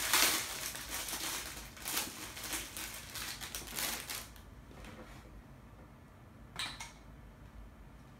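Rustling and clattering as small items are handled and packed into treat bags, busy for the first four seconds, then quieter, with one short clatter about two-thirds of the way through.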